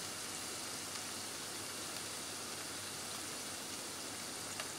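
Scallops sizzling steadily in hot oil in a stainless steel sauté pan, with a faint click near the end.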